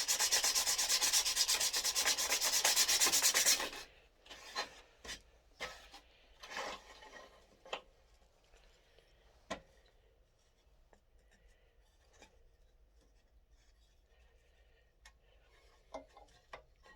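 Wood being sanded, a loud rapid rasping that stops about four seconds in. After it come scattered light taps and brief rubs as the wooden pieces are handled.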